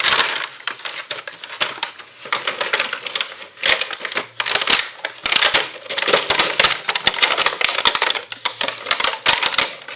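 Plastic packaging of a toy kitchen set being torn open and handled: dense crinkling and rustling mixed with rapid clicks and rattles of small plastic pieces.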